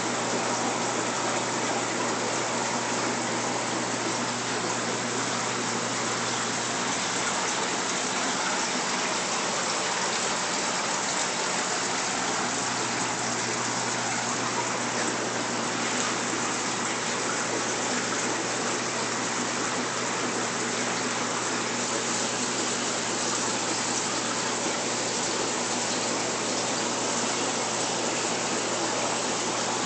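Aquarium water circulation: a steady rush of splashing water, with a low hum underneath.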